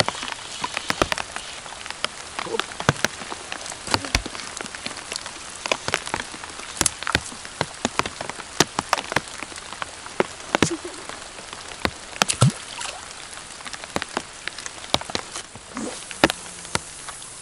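Rain falling, with drops striking a surface close to the microphone: irregular sharp hits, several a second, over a steady hiss.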